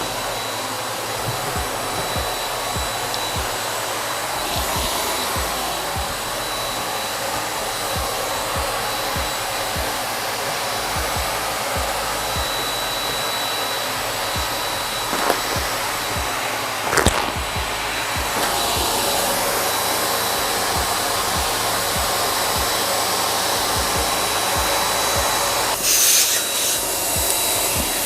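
Electric air pump running steadily, blowing air into a large reusable balloon ball, with a thin high whine over the rush of air. A few short knocks come through, and the pump gets slightly louder about two-thirds of the way in.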